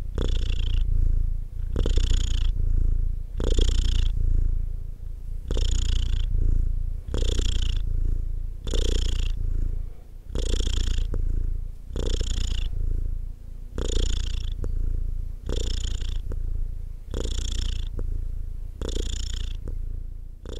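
Domestic cat purring steadily: a continuous low rumble that swells and eases in a regular cycle about every second and a half to two seconds.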